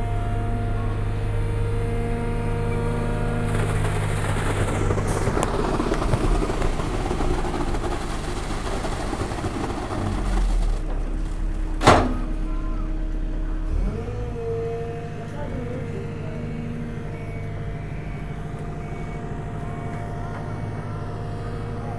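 CAT hydraulic excavator's diesel engine running steadily while it holds and swings a concrete bucket over foundation formwork. A rushing noise fills the first half for about six seconds, a single sharp knock comes about twelve seconds in, and the engine note shifts shortly after.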